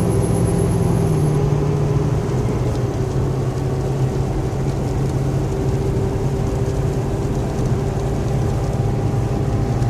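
Steady noise of a vehicle driving, heard from inside, with a steady droning hum from a fan. The hum steps slightly lower in pitch about a second in.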